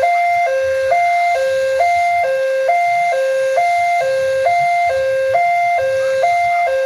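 Railway level-crossing warning alarm sounding: an electronic two-tone chime alternating steadily between a lower and a higher note, one pair a little under a second.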